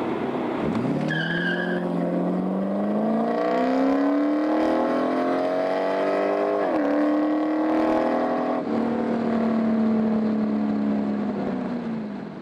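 Porsche 928's V8 with a Magnaflow exhaust, heard from inside the cabin, accelerating hard from a standstill. The engine pitch climbs, drops sharply at an upshift about seven seconds in, changes again about nine seconds in, then holds and sags near the end. A short electronic beep sounds about a second in.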